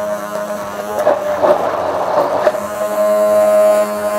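Hand-held immersion blender running steadily down in a tall beaker, blending a thick tonnato sauce of egg yolks, tuna and olive oil into a mayonnaise-like emulsion. A few short knocks sound over the motor's hum.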